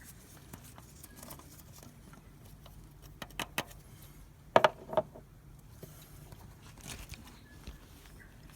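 Small clicks and knocks from handling the engine oil filler cap, with two sharper knocks about halfway through.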